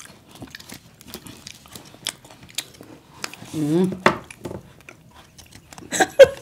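Metal fork and spoon clicking and scraping on chocolate bars and foil wrappers, with small snaps as the chocolate breaks into pieces. A short hummed vocal sound comes about halfway through, and voices start near the end.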